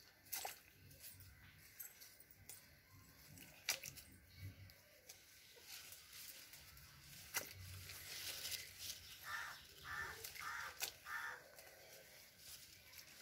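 Small hand hoe chopping into wet, muddy soil: about four sharp strikes, roughly three to four seconds apart.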